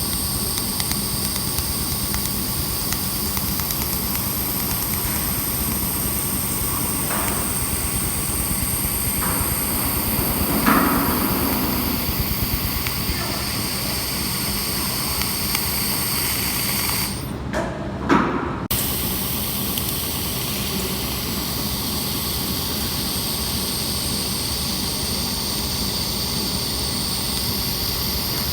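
Steady hiss and hum of a 300 W handheld laser welding machine running, with several high steady tones over the noise. About seventeen seconds in the noise drops out briefly, with a short sharp sound, then carries on.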